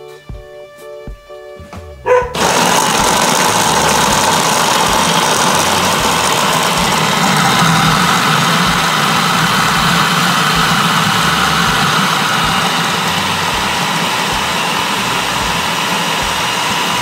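Food processor switching on about two seconds in and running steadily at full speed, its blade mincing a bowl of peeled garlic cloves. Soft music plays before it starts.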